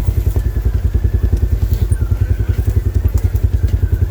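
Polaris RZR side-by-side's engine idling with a steady, even pulse and no revving.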